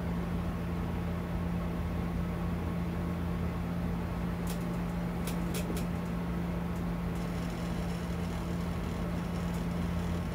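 Steady low mechanical hum, like a fan or electrical equipment running, with a few faint clicks around the middle.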